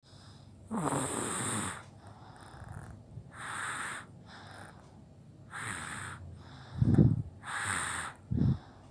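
A baby with a cold and a blocked nose breathing noisily, a snore-like rasp on each breath about every two seconds. Two short low voiced sounds near the end are the loudest part.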